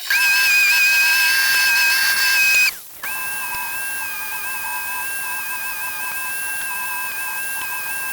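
TIG welding arc on stainless exhaust tubing, a steady high-pitched whine. It cuts off about two and a half seconds in and strikes again a moment later.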